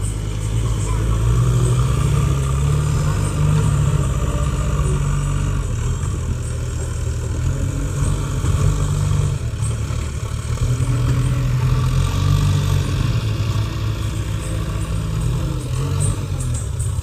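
Four-cylinder diesel engines of JCB 3DX backhoe loaders working under load, a heavy low rumble that rises and falls every few seconds as they scoop and lift earth into a dump truck.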